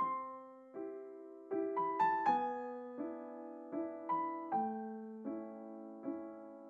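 Background solo piano music: notes and chords struck at an even pace, about every three-quarters of a second, each ringing and fading before the next.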